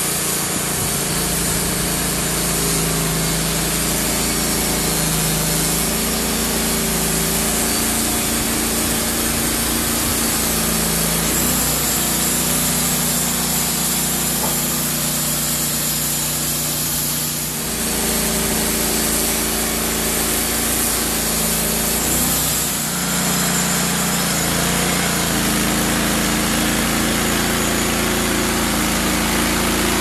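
Wood-Mizer LT15 portable bandsaw mill running: the engine pulls the band blade through a squared log. The engine pitch shifts a few times, about 11, 17 and 23 seconds in, as the load changes.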